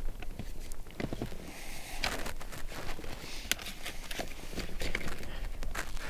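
Handling noises from an UPPAbaby Mesa infant car seat base and a vehicle seat belt being pressed down and pulled tight: rustling with a few scattered sharp clicks and creaks.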